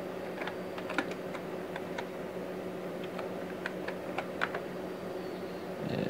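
Keys being typed on a computer keyboard: a dozen or so separate, irregular keystrokes as a console command is entered. A steady low hum runs underneath.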